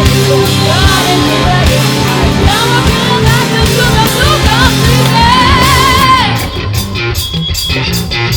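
Live rock band playing loud: a lead melody with bent, wavering notes over bass and drums. About six seconds in the lead drops out and the drums carry a steady, punchy beat.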